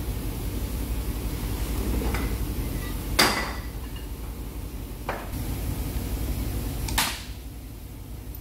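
Heavy steel tool pieces knocked and set down on a metal workbench: a few knocks, with two sharp metallic clanks, the loudest about three seconds in with a brief ring and another near the end, over a steady low hum.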